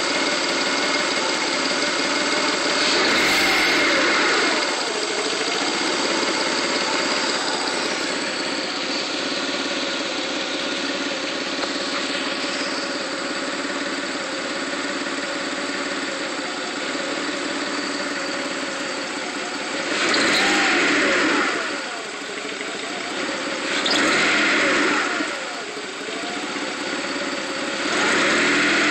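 A 1995 Mitsubishi 3000GT's 3.0-litre V6 idling roughly, revved up briefly four times: about three seconds in, twice after about twenty seconds, and again near the end. The engine stumbles when given gas and then revs with what the owner takes for a misfire, though he is not sure of the cause.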